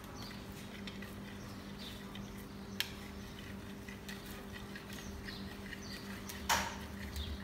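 Wire whisk beating a runny egg, yogurt and olive-oil mixture in a metal bowl: quick soft clicks and squelchy squeaks, with a sharp tick about three seconds in and a louder knock near the end. A low steady hum runs underneath.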